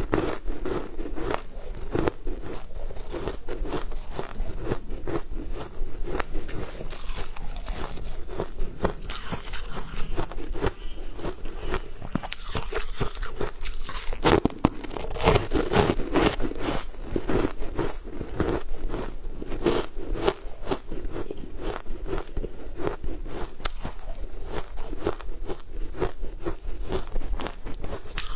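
Close-miked crunching and chewing of hard purple balls of food: a dense run of sharp, crackly bites and crunches one after another.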